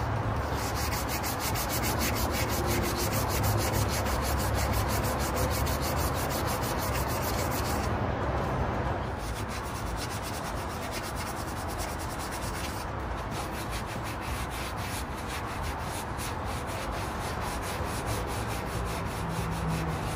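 Sanding on the wood of a 1930s dining table: a steady rubbing rasp with a quick, even rhythm, somewhat quieter from about nine seconds in.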